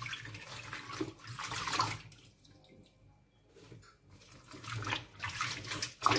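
Lettuce leaves being swished and rinsed by hand in a stainless-steel bowl of water in a kitchen sink: splashing and dripping water in two spells, with a quiet pause in between.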